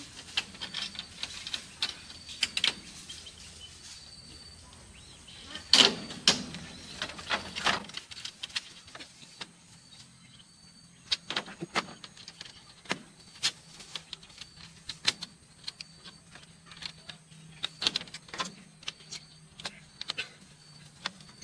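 Pliers twisting wire ties around split bamboo floor slats: scattered sharp clicks, snaps and knocks of metal on bamboo, with the loudest cluster about six seconds in.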